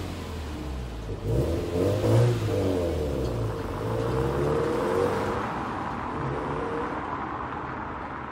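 Subaru WRX accelerating away, its engine note rising and dropping back at each gear change, then fading into the distance.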